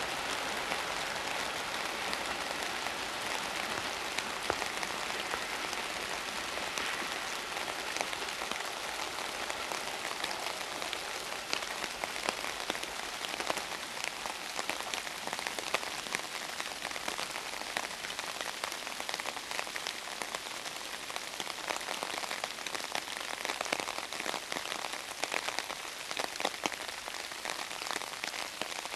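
Steady rain pattering, with many small scattered drop ticks.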